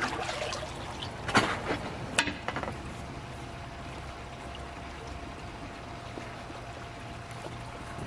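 Pond water splashing and dripping as a long-handled tool is pulled through it, loudest about one and a half and two seconds in, then settling to a steady low background noise.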